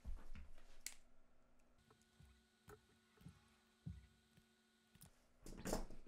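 Faint, sparse clicks and handling noise of a hand wire stripper taking the insulation off thin cable conductors, over a low steady hum.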